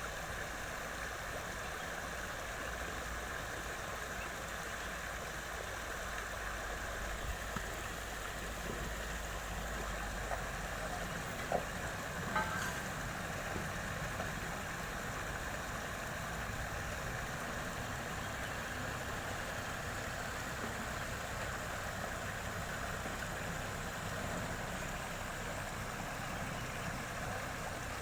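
Steady vehicle noise, a low rumble with an even hiss over it; the rumble drops away about ten seconds in, and two short knocks come about a second apart shortly after.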